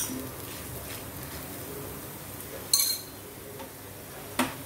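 Metal spoon or spatula scraping and clinking against a kadai while stirring crisp-fried plantain cubes: a few short sharp scrapes, the loudest just under three seconds in, and a clink near the end.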